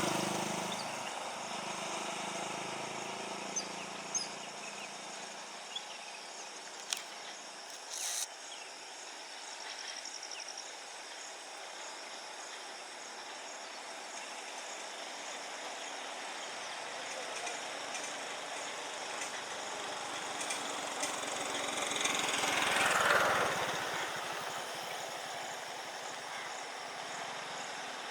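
Steady outdoor background noise with a few brief clicks early on, and a vehicle passing, swelling and fading, a few seconds before the end.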